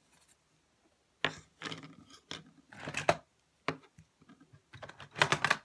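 Fingerboards and a plastic organizer drawer being handled: irregular clacks and scrapes as the small boards are picked up and set down on a wooden tabletop, with the busiest run of clatter near the end.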